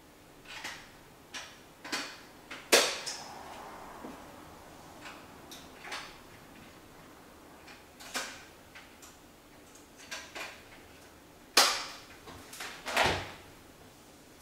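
Irregular clicks and knocks of kitchen handling: hand-mixer whisk beaters being fitted and a small almond-flavouring bottle being handled, with the mixer not running. About a dozen sharp clicks, the loudest about three seconds in and twice near the end.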